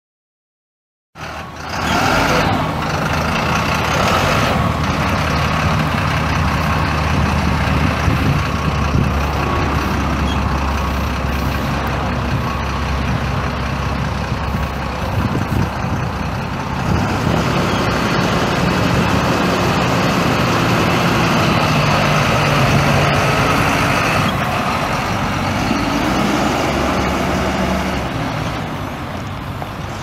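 Caterpillar 3116 six-cylinder turbo diesel engine of a 1996 GMC Blue Bird school bus running, starting suddenly about a second in and staying loud and steady, with its pitch shifting somewhat in the second half.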